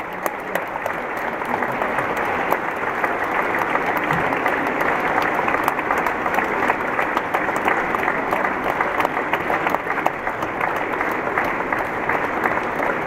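Sustained applause from a large theatre audience, a dense steady clapping that swells within the first second after the winner's name is announced.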